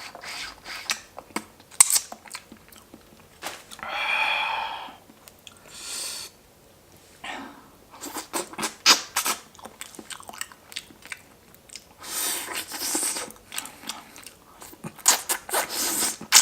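Close-miked chewing of crunchy kimchi, with many sharp crunches and clicks, and a few smoother sounds about a second long in between.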